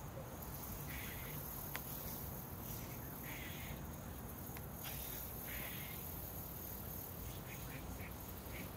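Steady high-pitched insect chorus, with short rasping sounds about every two seconds and a single sharp click a little under two seconds in.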